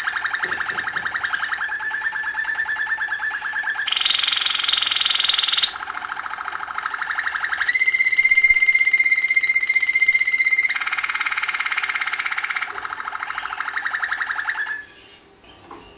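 Canary singing one long unbroken song made of rapid trills (rolls). The song shifts section by section between lower and higher pitches, with a held, steady whistled note in the middle. It stops about a second before the end.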